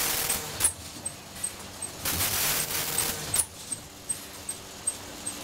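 Vertical granule packing machine running through its cycle: a hiss that stops with a sharp clack just after the start, and another hiss of over a second from about two seconds in that also ends in a sharp clack, over a steady low hum and faint, regular high ticking about three times a second.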